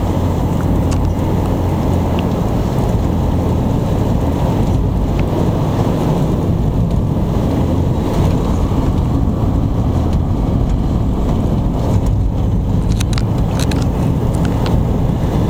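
Car driving at about 30 mph on a snow-covered road, heard from inside the cabin: a steady low rumble of engine and tyres. A few faint clicks come near the end.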